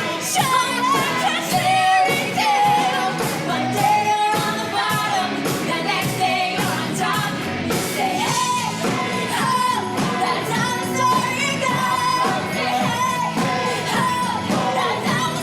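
Pop-rock show music with sung vocals and full band accompaniment; the words can't be made out in the transcript.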